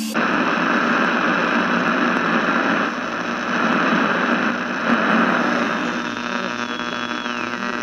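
Dense static-like electronic noise with a hum and several steady tones under it, cutting in abruptly. Near the end one high tone slides down in pitch.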